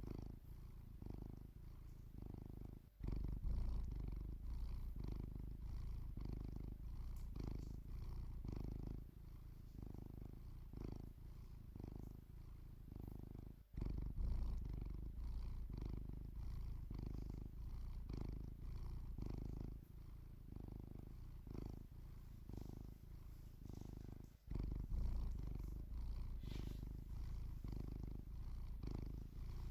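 Domestic cat purring steadily, close up, the purr pulsing about once a second with its breathing. It breaks off abruptly three times and comes back louder each time.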